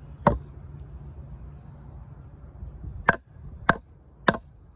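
Four sharp wooden knocks as a D2-steel bushcraft knife blade strikes into a V-notch in a hard log: one just after the start, then three about half a second apart near the end.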